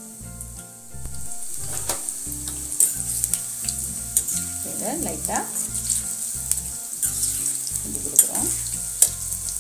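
Battered cauliflower pakoda deep-frying in hot oil: a steady sizzle of bubbling oil that grows louder about a second in, with a few sharp clicks.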